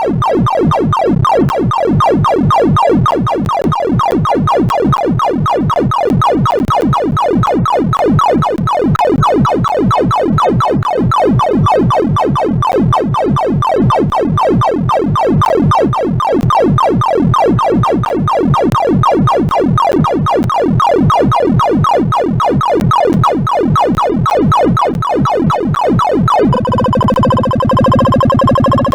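Synthesized electronic tones from a sorting-algorithm audibilization, each comparison sounding a pitch set by the value being compared: rapid repeated rising sweeps of pitch. About 26 seconds in the pattern changes abruptly to sustained steady tones.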